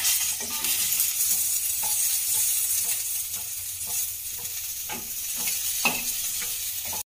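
Banana-leaf-wrapped fish parcels sizzling steadily in hot mustard oil in a kadai, with a spatula scraping the pan every second or so as they are turned. The sound cuts off suddenly near the end.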